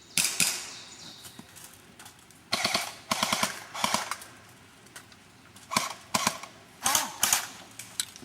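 Airsoft guns firing in several short rapid bursts, each a quick string of sharp clicking shots.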